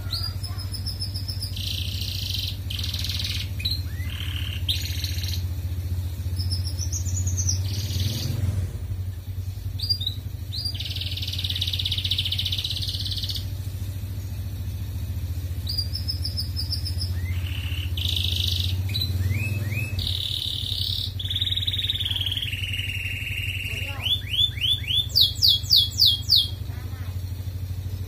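Canary singing in repeated phrases of high trills and whistled notes, with a run of rapid rising notes near the end as the loudest part. A steady low hum runs underneath.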